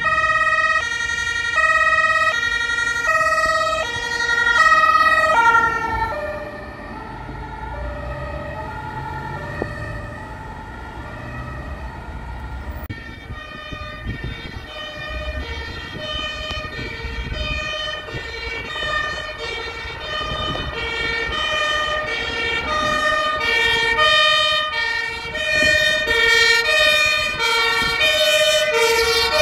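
Two-tone sirens of an ambulance and a fire engine driving past, switching back and forth between a high and a low pitch. From about halfway through, two sirens sound together out of step, over the rumble of the vehicles' engines.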